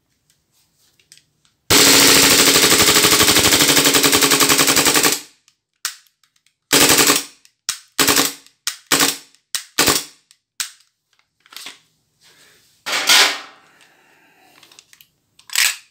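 KJW KP-18 airsoft Glock 18, a gas blowback pistol, firing on full auto with the slide cycling: one long rapid burst of about three and a half seconds, then a string of short bursts and single shots with gaps between them.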